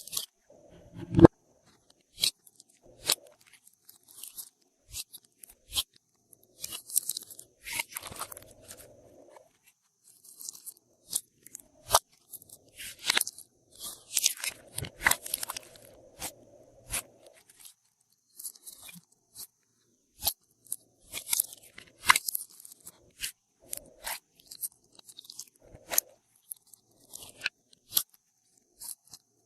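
Glossy slime being squished and mixed by hand: irregular sharp clicking pops with short crunchy, crackling stretches.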